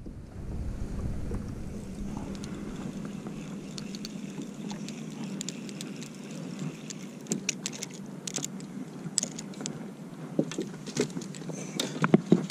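Small waves slapping against the hull of a fishing boat, with a steady low hum underneath and scattered sharp ticks and taps.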